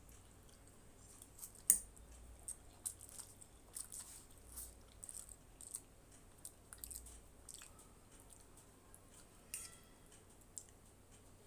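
A person chewing Maggi masala instant noodles: irregular, faint wet mouth clicks, with one sharper click about two seconds in. The chewing thins out in the last few seconds.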